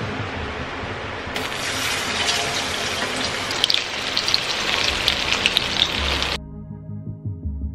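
Battered fish pieces deep-frying in a wok of hot oil: a steady sizzle that grows louder and brighter a little over a second in, with sharp crackles and pops, then cuts off suddenly about six seconds in, leaving soft background music.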